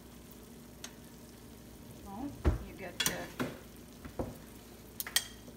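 Metal tongs stirring and scraping pasta in a stainless steel sauté pan, with several clinks against the pan and a dull knock about two and a half seconds in.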